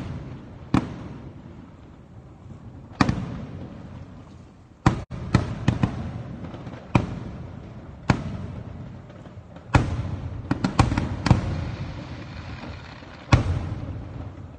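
Aerial fireworks shells bursting with sharp bangs, each trailing off in a rolling echo. About a dozen bursts come at uneven intervals, with a quick run of several about ten seconds in.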